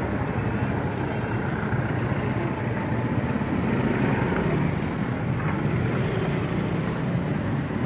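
Busy street traffic: motorcycle and car engines running, with a steady road noise.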